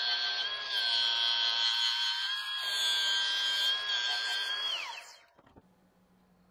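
Angle grinder running with a steady high whine as its disc grinds the steel of a hand-forged axe head. Near the end the grinder is switched off and its whine falls in pitch and dies away.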